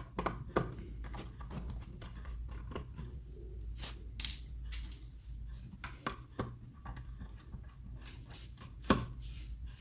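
Hands handling small tools and plastic microscope parts during disassembly: scattered light clicks and taps, with a sharper knock about nine seconds in, over a steady low hum.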